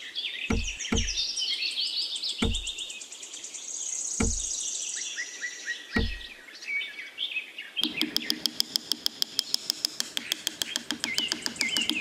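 Birds chirping and tweeting throughout, with five soft, low thuds in the first six seconds as small clay wall pieces are set down on sand. From about eight seconds a rapid, even ticking of about seven a second joins in.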